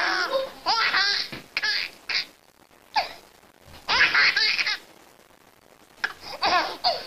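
A baby laughing hard in repeated bouts of high-pitched laughter, each bout a run of quick rising and falling hoots, with short breathless pauses between them about two and a half seconds in and again around five seconds in.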